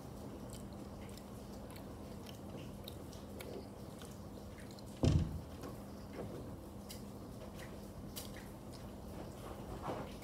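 A child chewing and biting soft bread spread with Nutella: scattered quiet mouth clicks, with a bite into the bread near the end. A single low thump, the loudest sound, comes about halfway through, over a faint steady hum.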